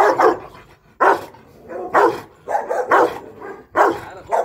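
Large dog barking repeatedly, about once a second, six barks in all. The barking comes from a caged guard dog that the handler at its door says hates him.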